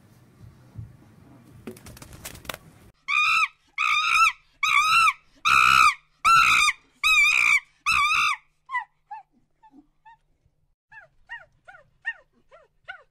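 Vervet monkey calling: seven loud, high calls about two-thirds of a second apart, each rising and then falling in pitch, followed by a series of faint, short falling chirps.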